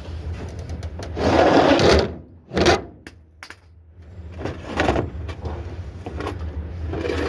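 A steady low engine hum with several loud, noisy bursts of scrap being handled: a long one about a second in, a sharp one a little later, and another about five seconds in.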